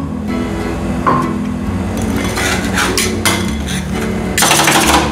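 Steel spatulas knocking and scraping on a frozen steel ice-roll pan as they chop coffee and vanilla ice cream mix. A few scattered knocks at first, then fast, continuous chopping for the last second or so.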